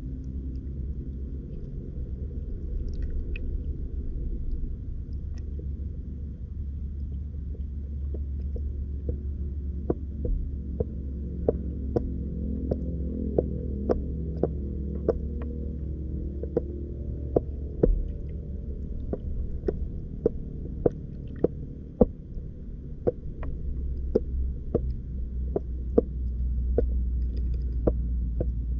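Steady low underwater rumble and hum picked up by an underwater camera's microphone, with sharp clicks and ticks that grow frequent from about a third of the way in, roughly one or two a second.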